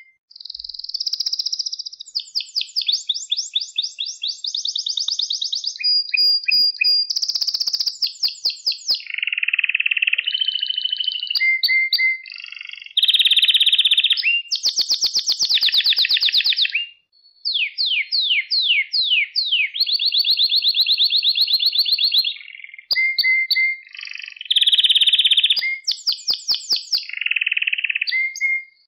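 Domestic canary singing a long, continuous song: runs of rapidly repeated notes at different pitches, some as fast rising sweeps, each run giving way to the next every second or two, with a brief break about two-thirds of the way through.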